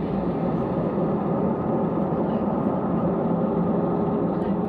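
Airliner's jet engines running at takeoff power, heard as a steady, loud whooshing noise with a low hum inside the passenger cabin.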